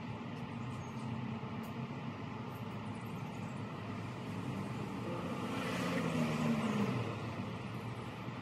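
A vehicle passing by, growing louder and then fading, loudest about six seconds in, over a steady outdoor background hum.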